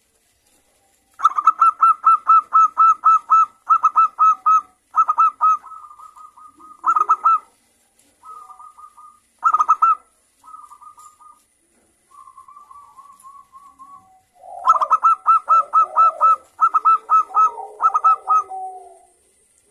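Zebra dove (perkutut) cooing: runs of quick, evenly spaced, high notes at about five a second, broken by short pauses and softer phrases. A final run has lower, rougher calls underneath near the end.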